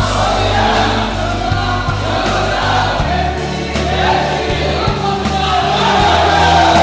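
Outro music with a choir-like chorus of voices singing over steady bass notes.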